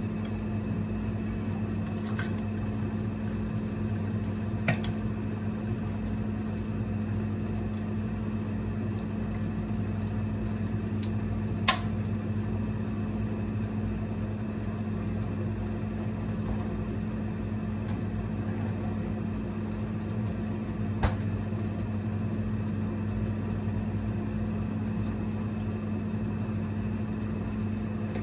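Single-burner induction cooker running with a steady electrical hum and fan noise. Three short sharp clicks are spread through it, the loudest about halfway.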